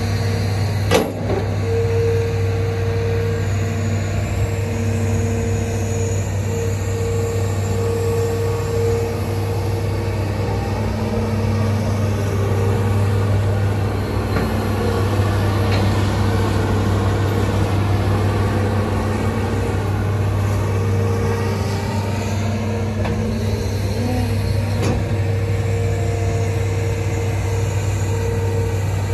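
Hitachi ZX210LC long-reach excavator's diesel engine running steadily under load, with a higher steady tone that comes and goes over the engine note. There is a single sharp knock about a second in.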